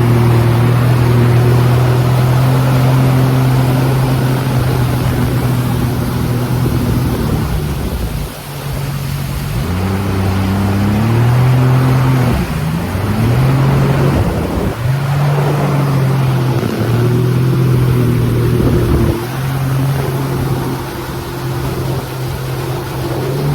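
Jet ski engine running at speed, its pitch rising and falling with the throttle and easing off briefly several times, over a constant rush of wind and water.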